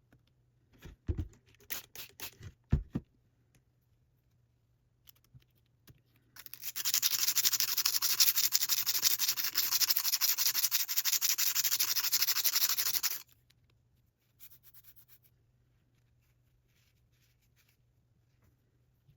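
A rusty metal tool being scrubbed by hand with an abrasive to polish off the rust: a steady, harsh scratching for about seven seconds that stops abruptly. A few light knocks come before it, in the first seconds.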